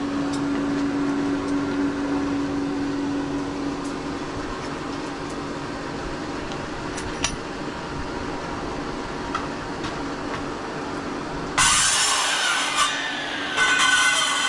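A handheld circular saw starts cutting cow horn clamped in a vise about two-thirds of the way in, a loud, harsh, high-pitched cut that breaks off briefly and then resumes near the end. Before that there is only a low, steady workshop background.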